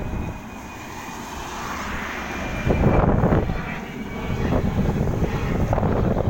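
Airplane passing overhead: a steady engine rumble with a thin high whine, growing louder about halfway in. Wind buffets the microphone.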